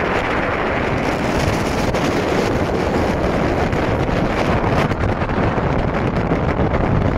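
Strong storm wind rushing steadily and buffeting the microphone.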